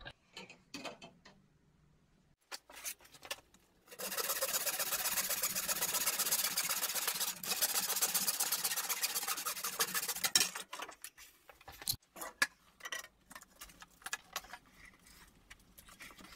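Hand wood saw cutting through plastic pipe: steady back-and-forth rasping strokes that start about four seconds in, pause briefly midway and stop about six seconds later. Scattered light knocks and clicks follow.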